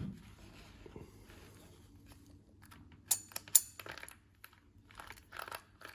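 Handling of the opened 12 V impact wrench: two sharp clicks about three seconds in, then a few softer ticks and knocks of parts being moved.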